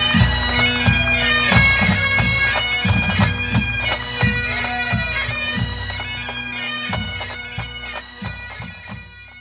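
Bagpipe music over a steady drone, with regular drum beats, fading out toward the end.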